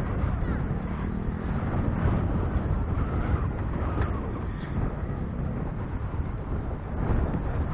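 Strong wind buffeting the microphone: a steady, irregular low rumble.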